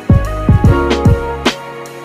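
Background music with a beat: repeated drum hits and deep falling bass thumps under held notes.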